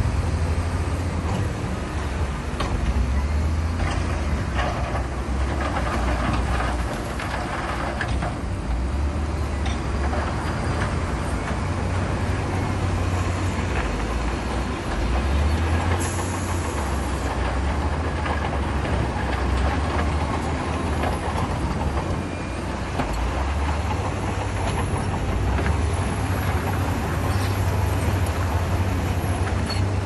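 Heavy diesel earthmoving machinery running hard, a steady deep engine rumble that swells and eases every few seconds.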